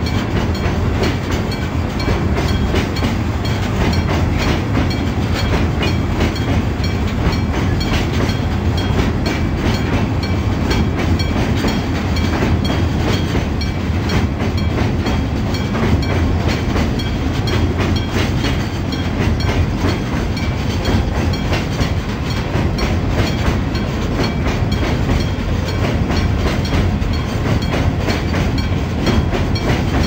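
Limestone hopper wagons (Hoki) of a freight train rolling past at a level crossing, a steady rumble with wheels clattering over rail joints. An electric-gong crossing bell rings steadily over it.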